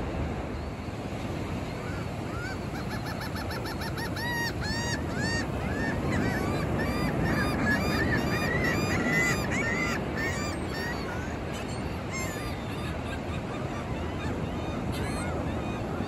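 Gulls calling: a quick run of repeated yelping notes that builds for several seconds, then a few scattered calls near the end, over the steady wash of ocean surf.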